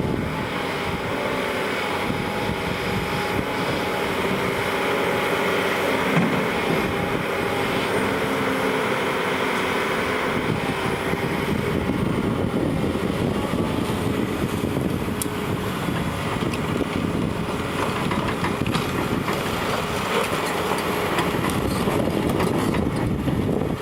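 Heavy construction machine's diesel engine running steadily under load, with a continuous mechanical rumble.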